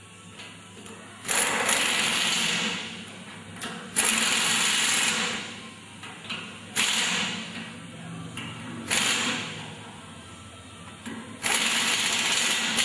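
Pneumatic impact wrench running in five bursts, the first two the longest, driving the bolts that fasten a truck vibrator to its mounting bracket.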